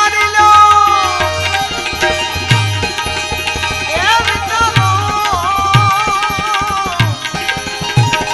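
Devotional bhajan music: a male singer holds two long wavering vowel notes, a short one at the start and a longer one from about four seconds in, over tabla strokes and a steady sustained accompaniment.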